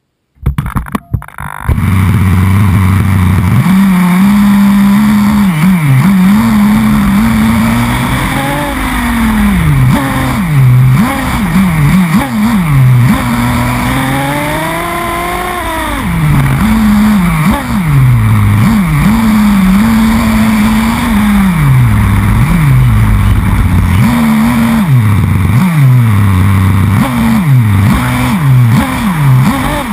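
Two-stroke nitro glow engine of an XTM X-Terminator2 RC buggy, heard close up from on the chassis, revving up and down over and over as the throttle is worked. It starts about two seconds in, after a few knocks.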